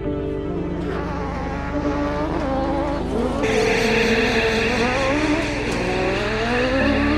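Autocross buggy engines revving up and down as the cars slide through a dirt corner, getting louder and brighter about halfway through.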